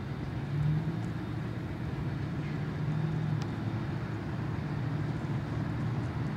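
Road cars driving past: a steady low rumble with a low engine hum.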